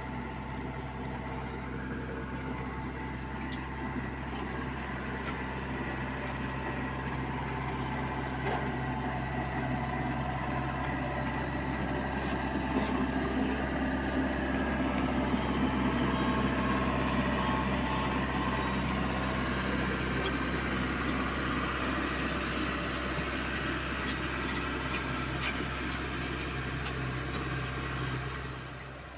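Komatsu PC75UU mini excavator's diesel engine running steadily, growing louder through the middle and easing off near the end, with one sharp click early in the run.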